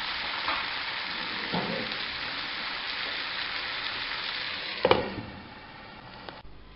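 Diced chicken and vegetables sizzling steadily in a frying pan, with two soft stirring scrapes in the first two seconds. A glass lid clanks onto the pan about five seconds in, and after that the sizzle is muffled and quieter.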